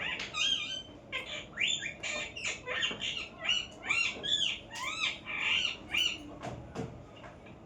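Pet parrot calling in a quick run of short squawks and chirps, several a second, each call bending up and down in pitch.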